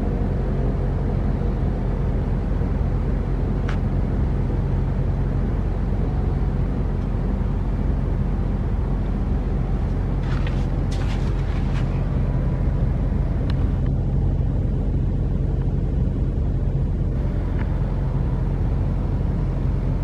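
Steady road traffic rumble with a low hum and a few faint short clicks; the warning siren is no longer sounding.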